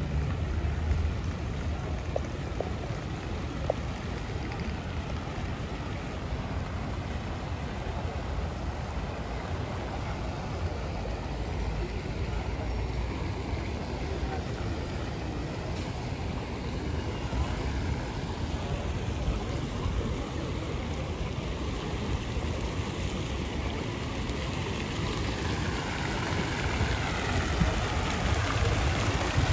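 Outdoor plaza ambience: fountain jets splashing into a shallow pool, over a steady low rumble of wind on the microphone. The splashing grows louder near the end.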